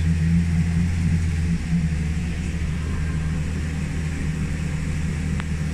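Safari tram running steadily, heard from on board: a constant low engine drone with a faint rumble of the ride.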